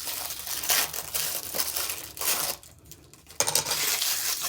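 Packaging crinkling and rustling as it is handled and opened, with a short pause about three seconds in.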